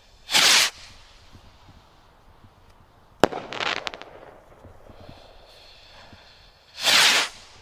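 Stick rockets firing: a short, loud whoosh of a rocket launching just after the start, a sharp bang about three seconds in as a rocket bursts, followed by about a second of crackling from its crackling stars, then another launch whoosh near the end.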